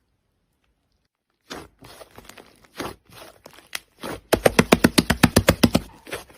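Slime being pressed and worked by hand, making crackling clicks and pops. The clicks start about a second and a half in, scattered at first, then turn into a fast run of sharp clicks, about ten a second, a little past halfway.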